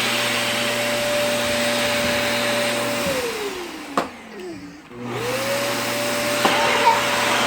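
Vacuum cleaner motor running with a steady whine. About three seconds in it is switched off and winds down, falling in pitch, with a click partway through. About five seconds in it is switched back on and spins up to its full pitch again.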